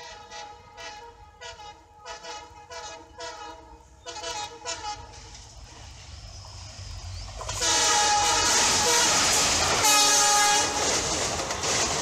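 A WDP4 diesel locomotive's horn sounding a quick run of short rhythmic toots as the train approaches. About seven and a half seconds in, the express reaches the spot and its loud passing rush, with the wheels clacking over the rails, swells up under further long horn blasts.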